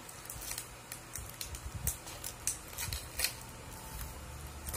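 Aluminium foil crinkling with scattered crackles as it is pulled and poked open by hand.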